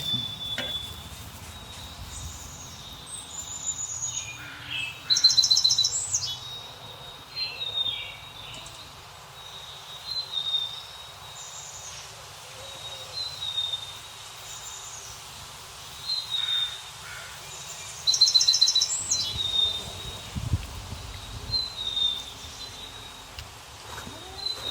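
Birds chirping: short high chirps repeating every second or two, with a louder rapid trilling phrase twice, about five seconds in and again near nineteen seconds.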